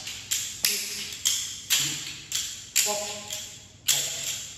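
Yosakoi naruko clappers clacking in a steady rhythm as the dancer moves, about two sharp clacks a second with a brief ringing after each.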